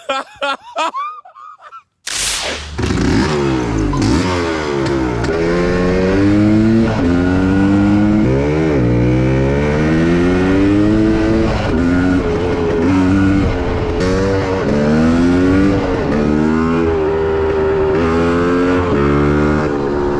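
1979 Yamaha DT250's single-cylinder two-stroke engine, cutting in abruptly about two seconds in. It is then revved hard again and again, its pitch climbing and dropping back repeatedly.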